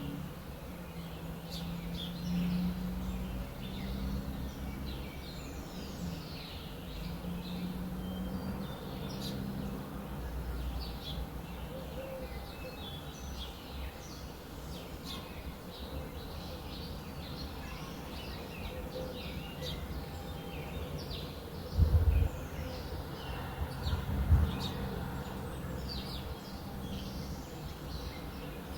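Many small birds chirping and twittering over a steady low outdoor rumble. Two brief low thumps come close together about three-quarters of the way through.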